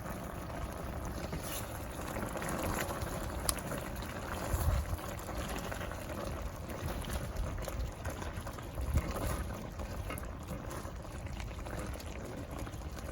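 A pot of food on the stove bubbling steadily at the boil as its liquid cooks down, with a couple of soft low bumps.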